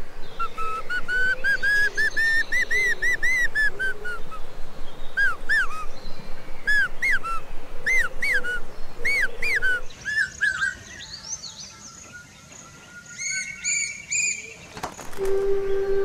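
A cuckoo whistling: a fast run of arched notes that climbs in pitch and then falls away, followed by spaced single and paired notes. The calls fade about ten seconds in, with fainter high notes near the end.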